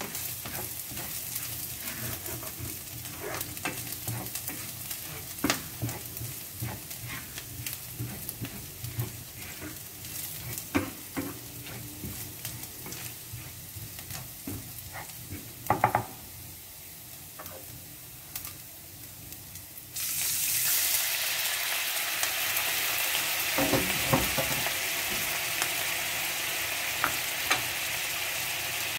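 Minced garlic frying in oil in a nonstick pan, with a spatula scraping and tapping against the pan. About twenty seconds in, liquid goes into the hot pan and the sizzle suddenly jumps to a loud, steady hiss.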